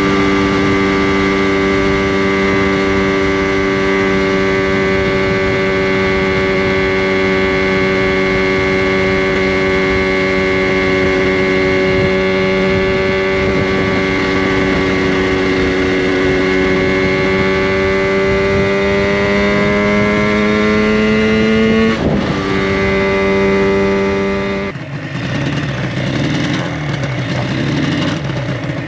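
Freshly rebuilt Yamaha RD350LC two-stroke parallel-twin engine running at a steady cruise. Its note climbs slowly, breaks briefly about 22 seconds in, then the throttle shuts about 25 seconds in and it drops to a low, uneven running as the bike slows.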